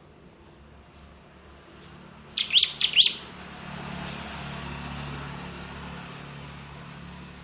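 Bar-winged prinia (ciblek) calling: four sharp, high notes in quick succession, followed by a fainter hiss lasting several seconds.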